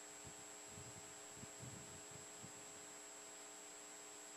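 Near silence: a faint steady electrical hum with a thin high whine, and a few soft low thumps.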